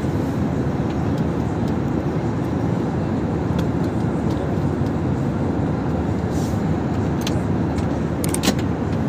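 Steady cabin noise of an Airbus A320 airliner in flight: an even low roar of engines and airflow. A few faint clicks come near the end.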